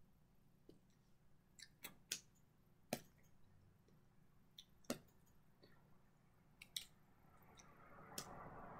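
Faint sharp clicks and taps at irregular intervals, a dozen or so, from hands and fingers meeting while signing. A soft rustle builds near the end.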